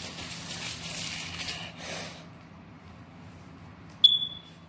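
Heavy, fast breathing close to the microphone for about two seconds, then a single sharp metallic clink with a short high ring near the end.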